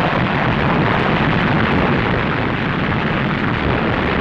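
Massed artillery bombardment: a loud, dense, continuous rumble of gunfire and explosions, with no single shot standing out.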